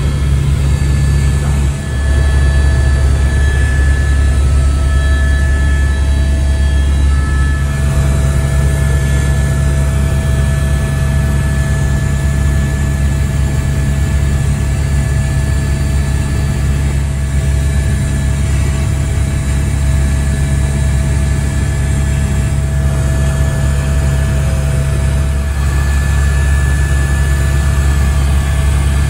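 Helicopter cabin noise in flight, heard from inside the cabin: a steady, loud low drone of the rotor and engine, with thin steady whines above it.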